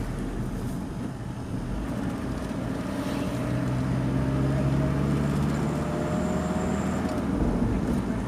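A vehicle driving along at speed: steady engine hum with road and wind noise, the engine note rising a little partway through.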